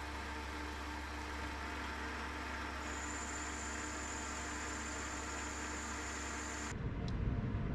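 Chester metal lathe running under power, its spinning chuck and motor giving a steady hum, as the tool takes a final finishing cut on a round bar. A thin high whine joins about three seconds in. Near the end the steady hum stops abruptly and a louder, rougher noise follows.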